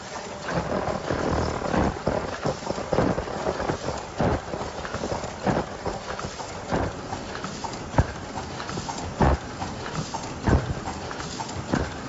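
Automatic disposable face mask making machine running, with a sharp clack about every 1.3 seconds as it cycles, over steady machine noise.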